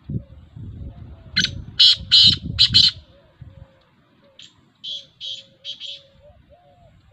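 Black francolin (kala teetar) calling: a loud, harsh phrase of four or five rapid notes about a second and a half in, then a fainter phrase of about five notes a couple of seconds later.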